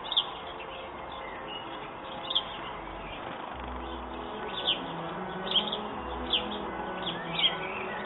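House sparrow chirping: about six or seven short, sharp chirps, spaced irregularly a second or two apart, over soft background music.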